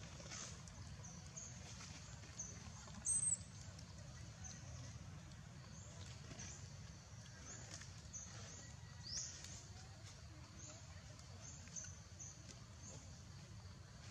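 Outdoor ambience: a steady low hum with many short, high-pitched chirps and squeaks scattered throughout, the loudest a brief squeak about three seconds in.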